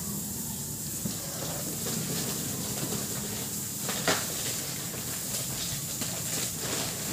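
Rustling and crinkling of packaging being handled over a steady hiss, with one sharp knock about four seconds in.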